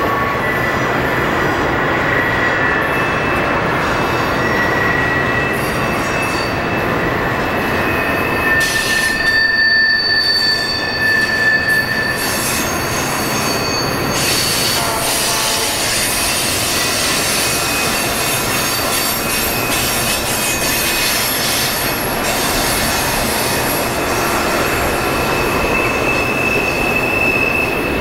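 Freight cars rolling past on a sharp curve, their wheels squealing against the rail in several high, shifting tones over the steady rumble of the train: flange squeal from the curve.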